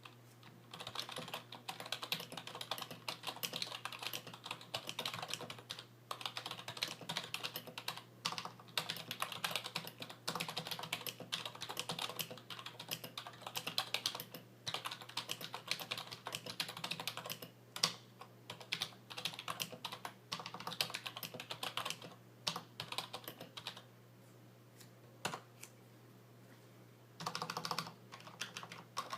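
IBM Model KB8923 rubber dome membrane keyboard with PBT keycaps being typed on in rapid, continuous keystrokes, a quiet, muted clatter. The typing thins to a few stray key presses about 23 seconds in, then a short flurry comes near the end.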